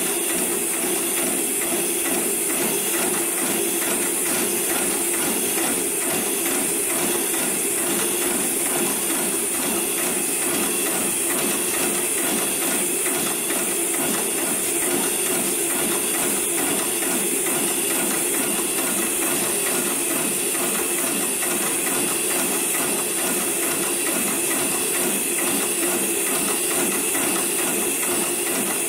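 733PLC/R programmable industrial rope-sewing machine running steadily, stitching the sewn eye into a thick climbing rope with a rapid, even needle rhythm over a constant high hiss.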